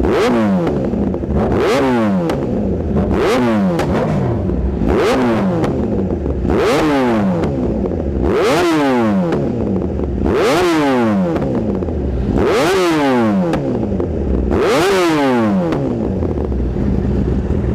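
Kawasaki ZX-10R inline-four superbike with an AR full-system exhaust being blipped repeatedly while standing. It makes about nine sharp revs roughly two seconds apart, each dropping back toward idle, and settles into a steady idle near the end.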